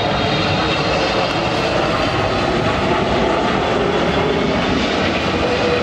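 Twin-engine Boeing 777 jet airliner passing low on landing approach: a steady, loud jet engine roar with a faint high whine over it.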